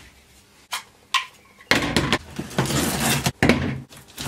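Cardboard box being slit and pulled open: a click about a second in, then a long stretch of cardboard scraping and rustling starting a little under two seconds in, with a shorter burst near the end.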